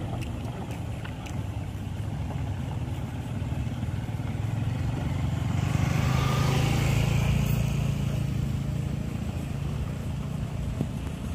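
A motorcycle engine approaches and passes close by, loudest about six to seven seconds in, then fades, over the steady hum of other vehicle engines working on the climb.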